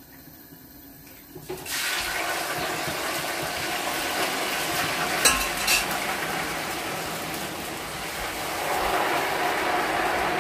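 Tomato stew bubbling hard in a covered pot: a steady simmering hiss that starts suddenly about a second and a half in, with two light clicks a little after the middle.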